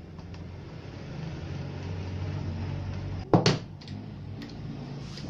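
Handling noise from wires and connectors inside an opened LED TV: a few faint clicks and one loud sharp knock a little past three seconds in, over a steady low rumble that swells and then eases.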